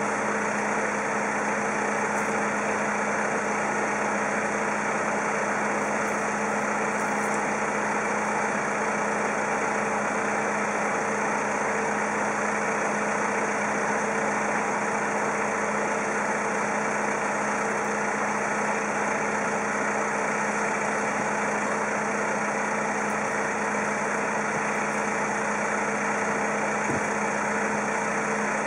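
A steady mechanical drone with a constant hum that does not change.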